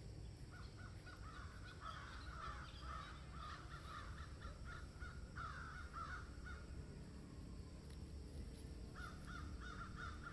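Animal calls: runs of short, quick, high calls repeated several times a second, pausing for a couple of seconds before a second run near the end.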